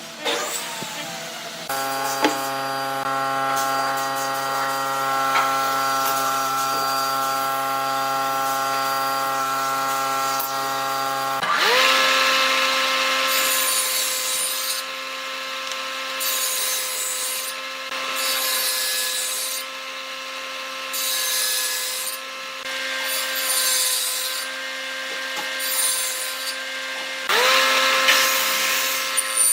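Power tools working wood. A motor hums steadily for about ten seconds, then a higher-pitched motor whines up to speed and runs on while cutting noise comes and goes in repeated passes. Near the end the motor whines up to speed again.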